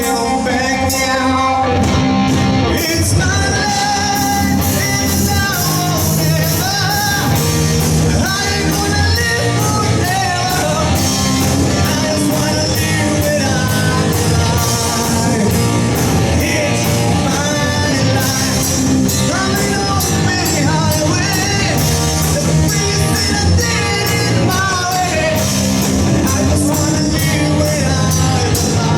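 Live rock band with vocals, electric guitar, bass and drums, playing a cover song; a singer sings over steady drum hits throughout.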